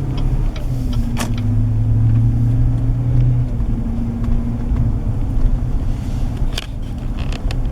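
Car engine running, heard from inside the cabin as a steady low hum, with a few sharp clicks: one about a second in and two near the end.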